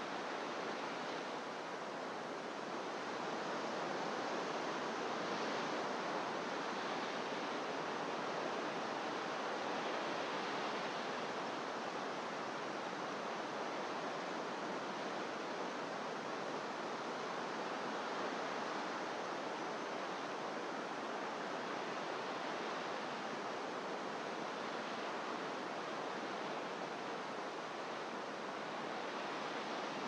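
Ocean surf breaking on rocks and sea stacks, heard as a steady, even wash of noise without distinct single crashes, swelling slightly a few seconds in.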